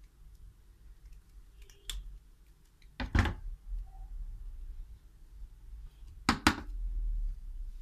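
Tools and small objects handled on a workbench: a sharp click about two seconds in, a louder knock about three seconds in, and two quick clicks near the end, over a low hum.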